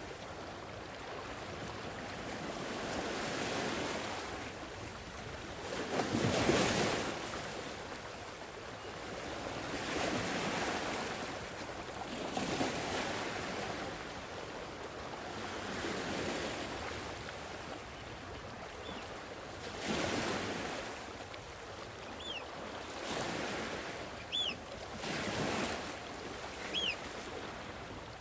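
Sea waves washing onto the shore, the noise swelling and falling every two to three seconds, the biggest wave about six seconds in. From about twenty seconds in, a few short high chirps sound over the surf.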